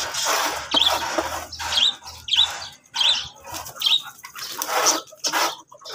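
Small pet finches fluttering their wings in repeated bursts inside a wire-mesh cage as a hand reaches in to catch them, with short high chirps in between.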